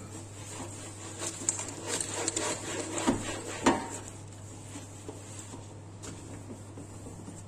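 Cloth wiping a stainless steel gas stovetop: scattered rubbing strokes with two light knocks about three seconds in, then quieter wiping.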